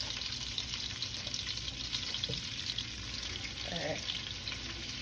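Butter melting and sizzling in a pot, a steady fine crackle.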